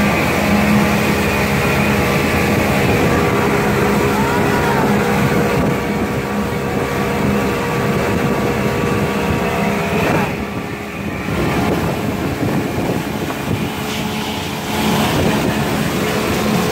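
Pontoon boat's outboard motor running steadily at speed, over the rush of its churning wake and wind. The sound drops briefly about ten seconds in, then picks up again.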